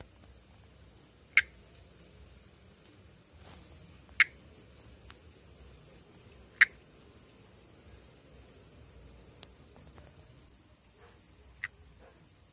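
Northeastern monkey tree frog (Pithecopus nordestinus) calling: single short, sharp call notes, four of them a few seconds apart at irregular intervals, over a steady high-pitched background drone.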